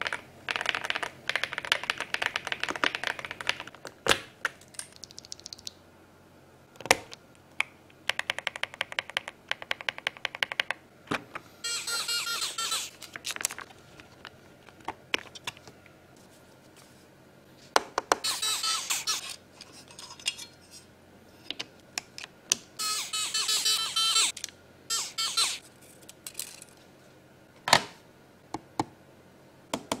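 Typing on the INFIVERSE INFI75 mechanical keyboard: rapid runs of key clicks, twice. Then scattered single knocks and several short stretches of high-pitched scraping as the keyboard's case parts are handled.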